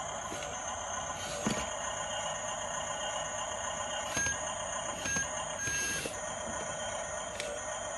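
Radio-controlled bulldozer's small electric motors and gearboxes whining steadily, with a few sharp clicks and short high beeps in the middle.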